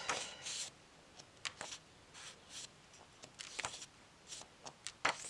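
Pages of a guidebook being leafed through: a run of short, soft paper rustles, with a sharper flick near the end.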